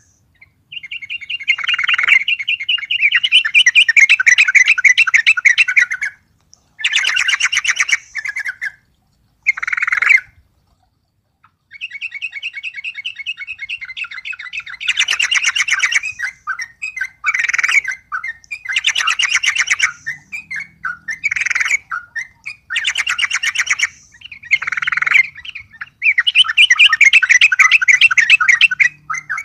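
Yellow-vented bulbul (trucuk) singing hard in fast runs of short notes, in bouts of a few seconds broken by brief pauses: song set off by a rival bird.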